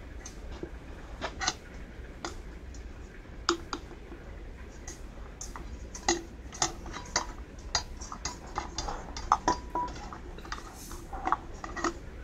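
Irregular small clicks and taps of a probe and screwdriver poking around inside a pedestal fan's head housing, at the broken speed-control switch.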